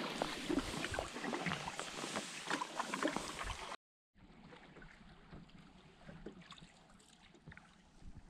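Water splashing and trickling around a canoe being paddled, full of small sharp drips and splashes. About four seconds in, it cuts off suddenly and resumes as a quieter stretch of lapping water.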